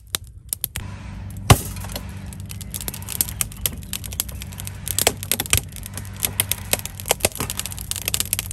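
Wood-fired raku kiln burning hard with a steady low drone of the fire, under many sharp cracks and pops; the loudest crack comes about one and a half seconds in. The cracks are the ceramic pins that hold the fibre-mat lining bursting from trapped moisture as the temperature climbs.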